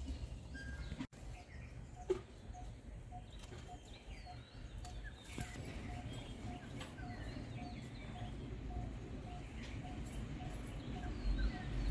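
Birds calling in the open: one bird repeating a short single note about three times a second, with scattered higher chirps over a low wind rumble.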